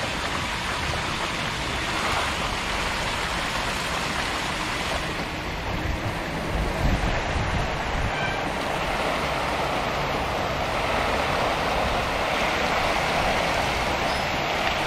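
A dense mass of catfish thrashing and splashing at the surface of a crowded tank as feed pellets are thrown in: a continuous churning of water.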